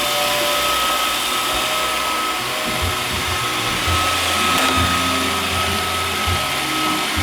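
iRobot Roomba 580 robot vacuum running on a straight run: a steady motor hum with a high whine. Low rumbling and knocks join in from about three seconds in.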